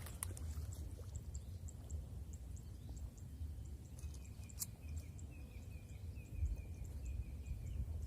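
Rice-paddy ambience: a steady low rumble with faint high ticking about three to four times a second. About halfway through, a wavering high call starts and repeats until near the end, with a single sharp click near its start.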